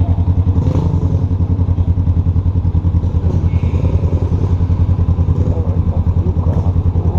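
Honda CB500F parallel-twin engine running at low revs with an evenly pulsing exhaust note, the motorcycle rolling slowly over cobblestones.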